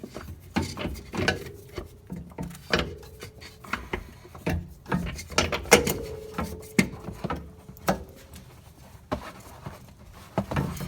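Irregular metallic clicks and knocks of hand tools on the lower mounting bolt of a car's rear shock absorber as the bolt is undone and the shock is worked free.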